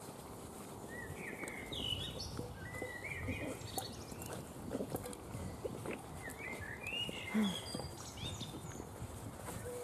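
A litter of Weimaraner puppies eating together from metal bowls: chewing, lapping and scuffling, with small clicks and knocks from the bowls. Birds chirp in the background.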